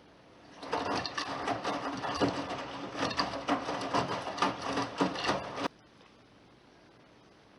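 Bosch WAQ28477EX front-loading washing machine turning its drum in the wash phase of a 90 °C cotton programme, wet laundry tumbling with an irregular run of clattering knocks. The sound starts shortly after the beginning and stops abruptly about two thirds of the way through.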